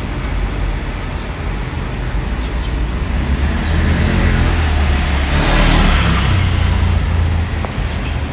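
Road traffic: a motor vehicle engine rumbles past, swelling to its loudest in the middle of the stretch and then easing off.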